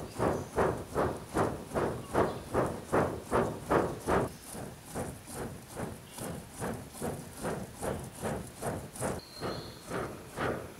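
Hand-worked bellows pumping air into a charcoal smelting furnace, a regular whooshing puff at each stroke, about two and a half a second. The strokes are louder through the first four seconds, then go on more softly.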